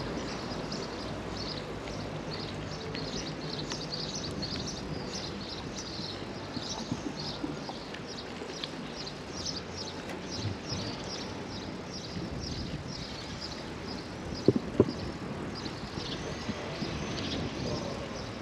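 Small birds chirping over and over, short high chirps throughout, over a low steady engine hum that fades out about halfway through. A couple of sharp knocks stand out near the end.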